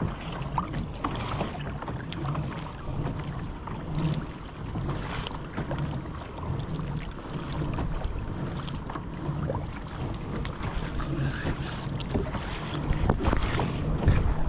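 Kayak pedal drive being pedalled: a low churning that pulses in an even rhythm, a little faster than once a second, with water against the hull and wind on the microphone.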